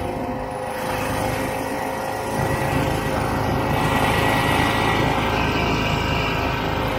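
1967 Ski-Doo Olympique 250's two-stroke engine running steadily as the snowmobile travels along the trail, getting a little louder about two and a half seconds in.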